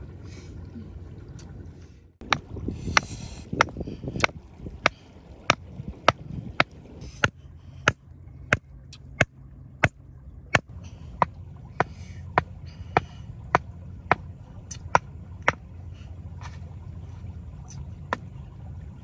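Wooden stakes being pounded into the ground: a steady series of sharp knocks, about one and a half a second, starting about two seconds in and stopping a few seconds before the end.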